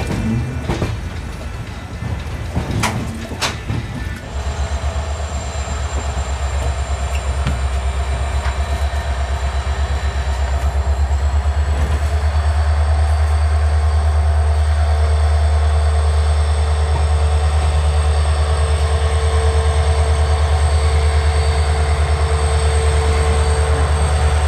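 Running noise of an Indian Railways LHB sleeper coach rolling through a station yard. A few sharp wheel knocks over the points come in the first seconds, then a heavy steady low rumble with a faint high whine. The rumble grows louder over the first dozen seconds as the train picks up speed, then holds steady.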